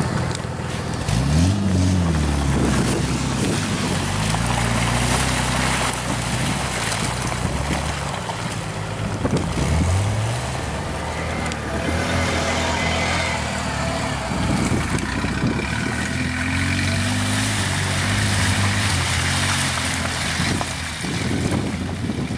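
Off-road vehicle engine revving up and down several times, over a steady rushing noise.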